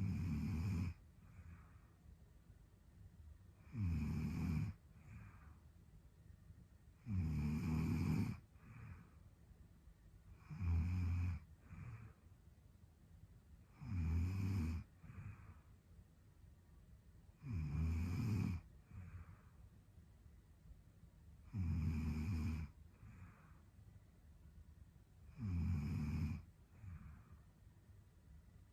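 A sleeping young woman snoring in a slow, even rhythm: eight rough, low snores about every three and a half to four seconds, each about a second long and each followed by a fainter breath.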